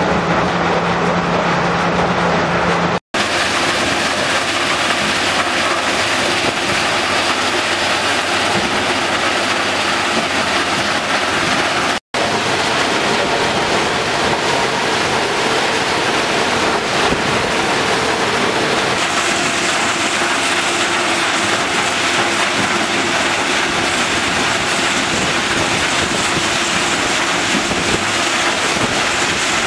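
Stone-crushing plant running: the steady, loud noise of a jaw crusher and belt conveyors carrying crushed rock. It drops out twice for an instant, about 3 and 12 seconds in.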